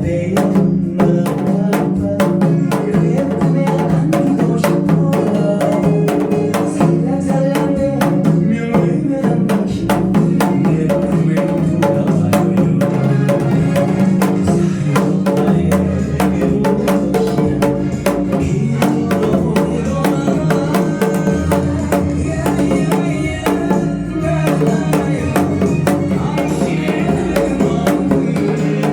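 Janggu (Korean hourglass drum) played in a quick, steady drumbeat along with a pop-style backing track.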